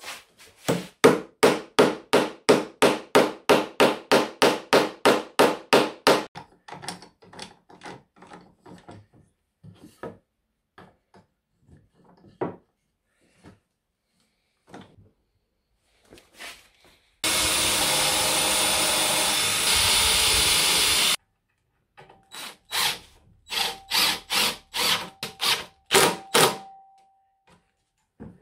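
A hammer drives a T-nut into plywood with a quick run of about twenty blows, about four a second. Scattered knocks and clicks follow. Then a cordless drill in a drill stand bores into plywood for about four seconds, followed by more knocks near the end.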